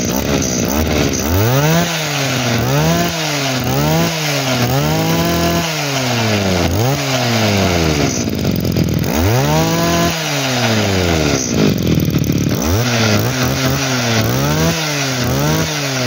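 A Kioritz 24 brush-cutter's small two-stroke engine, running and being revved up and down again and again by hand at the carburettor throttle. The pitch rises and falls about once a second, with a few slower, longer revs in the middle and quicker blips near the end.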